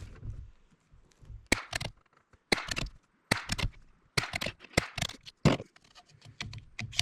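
CZ 457 bolt-action rifle firing CCI Standard .22LR rounds: a run of sharp shots, with the clicking and clacking of the bolt being worked between them. These are barrel-seasoning shots.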